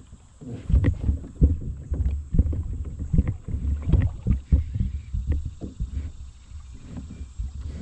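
Irregular low thumps and knocks on a fishing kayak as the angler reels in a hooked fish on a bent rod.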